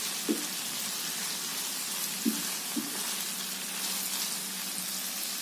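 Chicken and green chili paste frying in oil in a pan, a steady sizzle, with a few brief soft knocks of a wooden spatula stirring against the pan.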